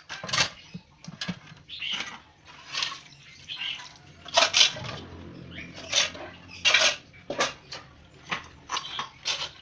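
Kitchen dishes and utensils clattering and scraping in a series of irregular short knocks and clinks.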